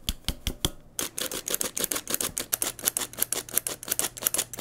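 Hand-held metal flour sifter being worked to push flour, cocoa and sugar through its mesh: a rapid run of light metallic clicks and taps, a few at first, then many a second after about a second in.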